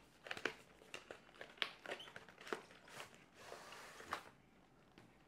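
Cardboard packaging being handled and opened: a series of faint clicks and taps, then a short sliding rustle about three and a half seconds in as the box sleeve slides off the inner tray.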